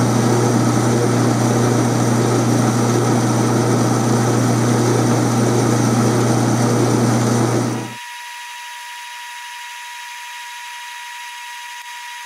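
Atlas metal lathe running under power while a carbide insert turns down the outside diameter of a steel bar, a steady loud hum from the motor and drive. About eight seconds in the sound drops suddenly to a much quieter steady running sound with a thin high whine.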